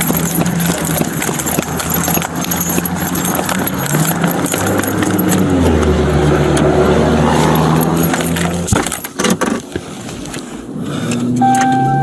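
Clatter and jingling of a police officer's duty gear rubbing against a worn camera, with a vehicle engine running and changing speed underneath. A few sharp knocks come about nine seconds in, and a steady high tone starts near the end.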